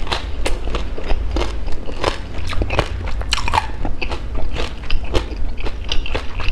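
Close-miked crunchy chewing of a sesame-coated fried rice-flour donut (bánh cam), its crisp fried crust crackling irregularly with each bite.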